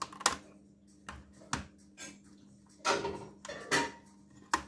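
Sharp clicks and taps of hard plastic and metal laptop parts being handled during disassembly, with two short scraping sounds about three seconds in and a little later.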